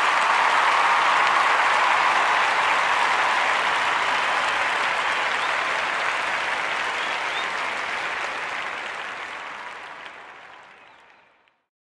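Audience applause, steady, then fading out over the last few seconds.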